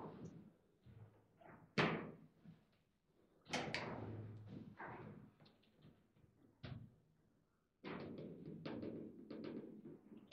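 Table football in play: the ball striking the figures and the table's walls, with the rods clacking. There are sharp knocks a second or more apart, then a quick run of clicks and knocks near the end.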